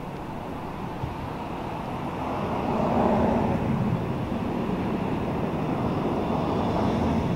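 Steady background rumble of vehicle traffic, growing louder about two to three seconds in.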